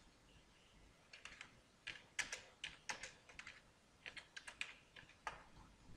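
Typing on a computer keyboard: faint, irregular key clicks in quick runs.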